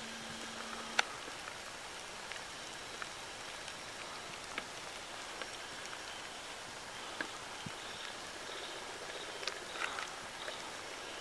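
Light rain pattering on the surrounding brush and leaves: a steady soft hiss dotted with small drips, with one sharper tick about a second in.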